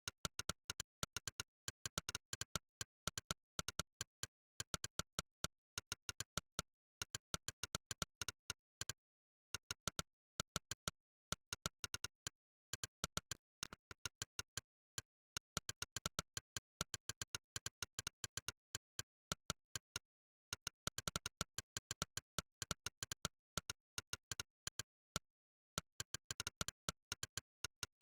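Monkeytype's 'click' keypress sound effect: a short synthetic click for every keystroke, in fast runs of about five a second broken by brief pauses, with dead silence between clicks.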